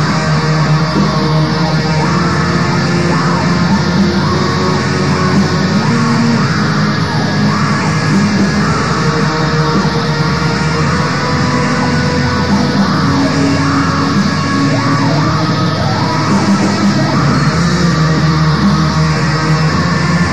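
Raw black metal recording: heavily distorted electric guitars in a dense, steady wall of sound.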